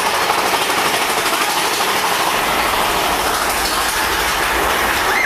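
Mine-train roller coaster running along its track, heard from on board: a steady, loud rush of wheel and track noise, with a deeper rumble coming in about two seconds in.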